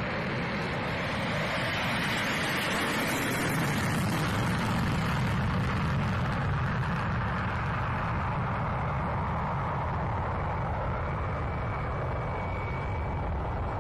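MiG-27 fighter's single turbojet engine in full afterburner on its takeoff run and climb-out: a steady jet roar that builds to its loudest about halfway through and then slowly fades as the aircraft climbs away.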